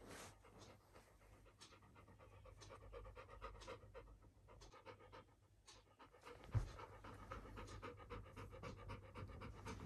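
Labrador retriever panting softly with fast, even breaths, mouth open. A short thump about two-thirds of the way through.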